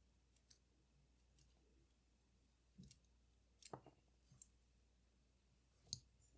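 A few faint, sharp clicks and taps of small metal camera parts and tools being handled during a camera teardown, the loudest a quick pair a little before four seconds in and another near six seconds.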